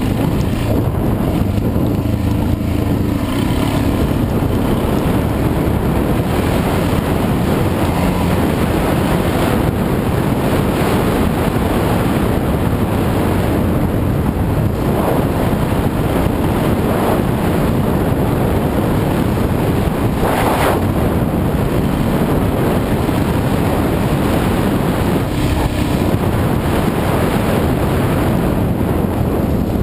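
Enduro dirt bike engine running at speed along a rough trail, heard through heavy wind buffeting on a bike-mounted camera microphone, with a short sharp knock about twenty seconds in.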